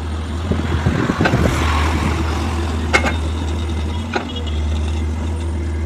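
A heavy construction machine's diesel engine running steadily with a low hum. About a second in there is a brief rushing noise, and there are sharp metallic clanks about three and four seconds in.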